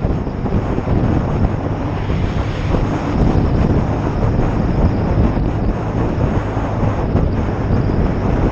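BSA Lightning 650 parallel-twin engine running steadily under way, with wind rushing over the microphone.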